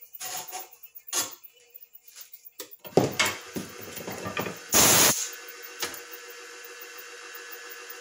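Handling rustles and knocks at a wood lathe, with a short loud rush of noise about five seconds in. After that the lathe runs with a steady hum while a Bubinga pen blank is hand-sanded on it.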